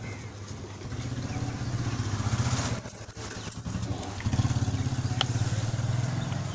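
A motor vehicle engine running steadily with a low hum, growing louder about a second in, dipping briefly near three seconds, and swelling again after about four seconds.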